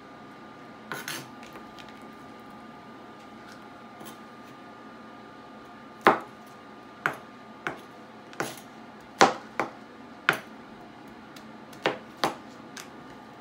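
Chinese cleaver cutting pineapple on a plastic cutting board: about ten sharp knocks of the blade hitting the board, irregularly spaced and coming more often in the second half.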